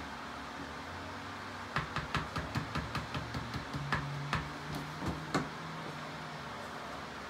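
A quick run of light metallic clicks, about five a second, from about two seconds in to past the middle: clutch friction plates and steel spacer plates being slid into a 2016 KX450F's clutch basket. A steady low hum runs underneath.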